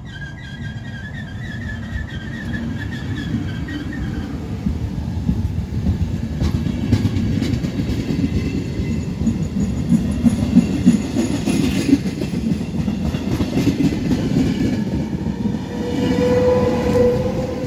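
Regional push-pull passenger train passing close by: a heavy wheel rumble with repeated clacking of wheels over the rail joints as the carriages go past. A high tone fades out over the first few seconds. Near the end a steady whine starts as the E464 electric locomotive pushing at the rear goes by.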